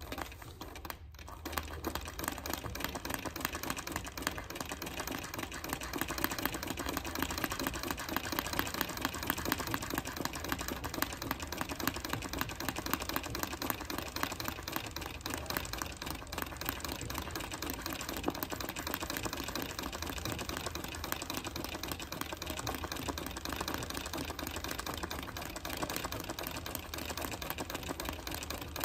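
Treadle sewing machine stitching continuously, a rapid, even clatter of needle and mechanism, starting about a second in, during free-motion embroidery on a hooped doily.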